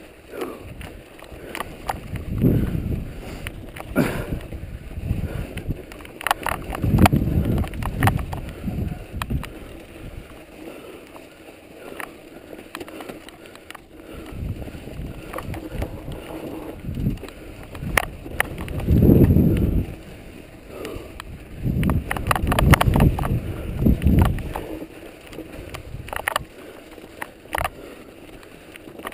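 Mountain bike riding a snowy, rocky trail, heard from a camera mounted on the bike: tyres rolling over snow and stones, with irregular clicks and rattles from the bike and low rumbling swells every few seconds.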